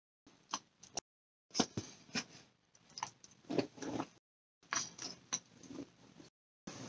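Close-up chewing and lip-smacking on a soft, creamy mouthful of cheesecake: wet mouth clicks in four short spells with dead silence between them.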